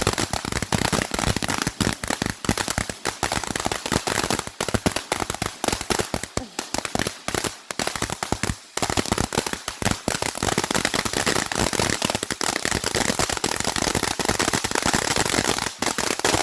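Fireworks crackling and popping: a dense, rapid run of sharp pops many times a second, with a couple of brief lulls around the middle.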